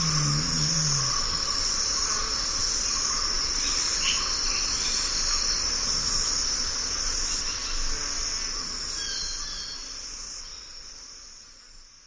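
Dense, steady chorus of many stridulating insects, with a low droning tone that ends about a second in. The chorus fades out over the last few seconds.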